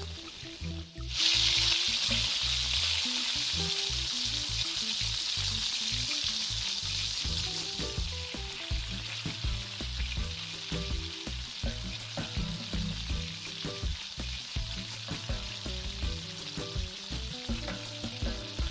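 Hot pilaf base in a cast-iron kazan hissing as rice is spread into it, starting suddenly about a second in and slowly easing. Background music with a low bass line runs underneath.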